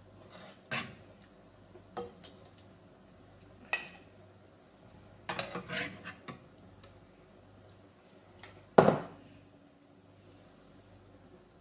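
A metal ladle clinks and scrapes in a stainless steel saucepan while scooping soaked semolina balls out of milk. It makes scattered single clinks, a quick cluster about halfway through, and one louder knock with a short ring about three-quarters of the way in.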